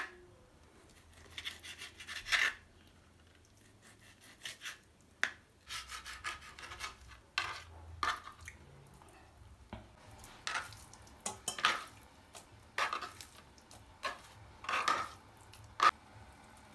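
Kitchen knife cutting raw meat into cubes on a plastic cutting board: irregular taps and scrapes of the blade against the board, with a few sharper clicks.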